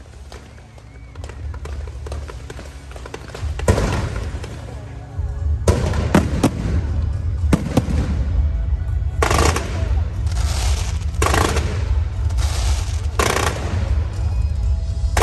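Fireworks going off: a dense crackle that grows louder, with heavier bursts every second or two from about four seconds in, over a steady low rumble.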